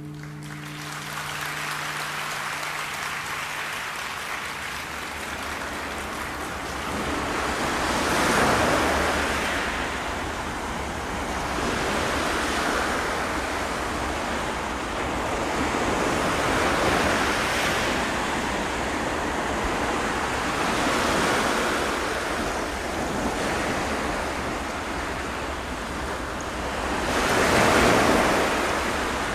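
Rushing, surf-like wash of sound from a sound-healing instrument, rising and falling in slow swells every few seconds, the biggest swell near the end. The last hum of a singing bowl fades out in the first seconds.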